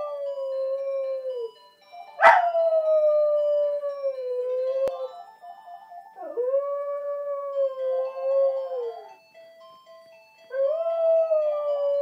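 Small white terrier howling: four long, slowly falling howls, the first already under way, the second breaking in loudly about two seconds in. Under them a phone's ringtone melody plays on; the ringing is what sets the dog howling.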